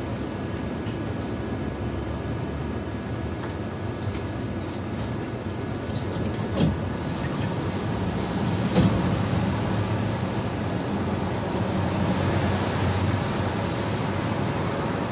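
Tram running on its rails, heard from on board: a steady low rumble with two sharp knocks about two seconds apart midway. A steady whine comes in near the end.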